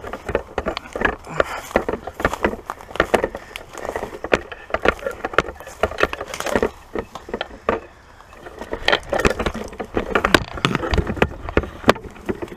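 Footsteps crunching and rustling through dry weeds and brush, a dense irregular run of snaps and crackles with some knocks, easing off briefly about eight seconds in.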